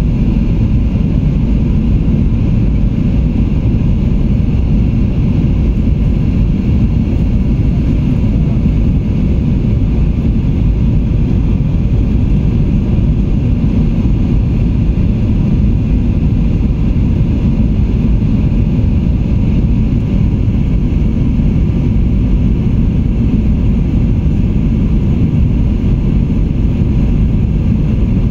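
Aircraft in flight: a steady, low rumble of engine and airflow noise that holds even throughout.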